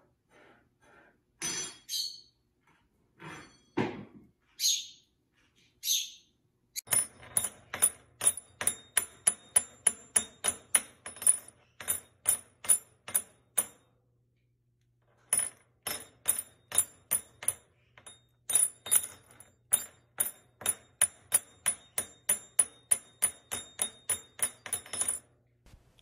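A green-cheeked conure chirps a few times and knocks a metal spoon about, then the spoon clinks sharply and fast, about three or four strikes a second, each with the same high ring, with a break of about a second midway.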